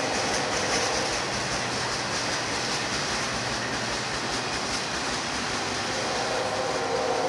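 Freight train of double-stack container well cars rolling past close by: a steady rumble of wheels on rail with some clickety-clack. A steady squealing tone, typical of wheel squeal, comes in near the end.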